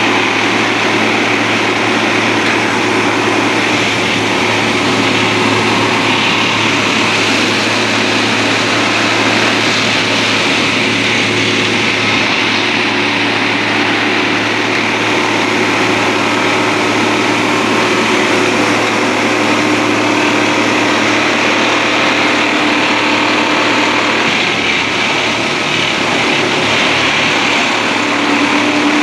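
Diesel engine of a railway track tamping machine running steadily and loudly.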